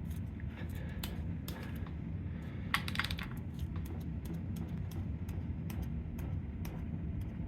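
Light, irregular metallic clicks and taps from hand work on the prototype gear drive timing set, with a quick rattle of clicks about three seconds in, over a steady low hum.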